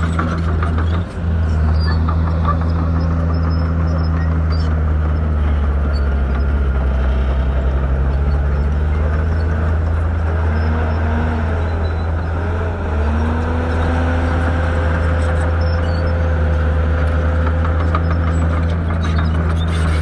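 Heavy diesel engine of a bulldozer running steadily with a deep hum, its pitch shifting slightly a few times in the middle as the load changes.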